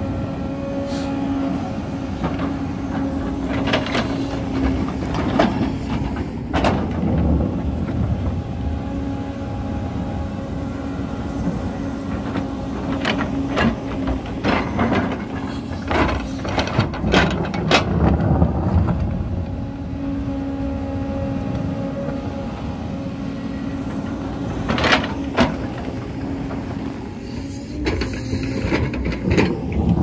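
JCB tracked excavator's diesel engine running steadily under hydraulic load, while its bucket teeth scrape and knock against dry soil and broken stone on the slope. The scraping and knocking comes in clusters, busiest about halfway through and again near the end.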